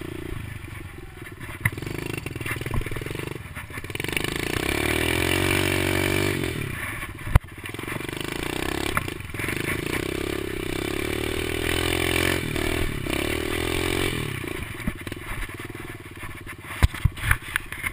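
Kawasaki KLX110 pit bike's small air-cooled four-stroke single being ridden, the engine revving up and falling back again and again with the throttle. A single sharp knock about seven seconds in and a rapid run of knocks and rattles near the end.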